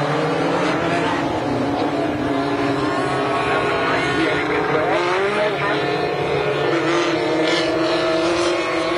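A pack of small Sportsman turf-tire dirt-track race cars running together, several engines sounding at once at different pitches. Revs rise about four to five seconds in.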